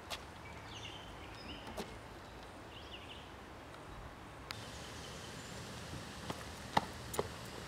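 Outdoor ambience with a steady background hiss and small birds chirping a few times in the first three seconds. A handful of sharp clicks or taps break in, the loudest ones near the end.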